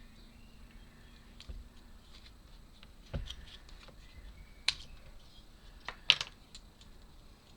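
A few sharp clicks and knocks from wooden puzzle parts and a small screwdriver being handled during assembly. The loudest knock comes about six seconds in.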